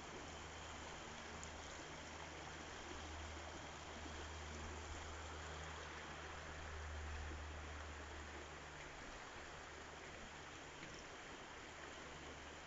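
Stream water flowing with a steady, faint rush, over a low rumble.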